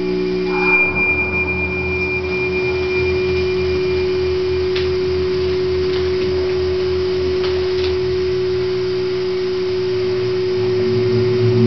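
Modular synthesizer drone: a steady, sine-like held tone with a thin high whistle that fades out in the first few seconds, over a low pulsing throb that starts about a second in.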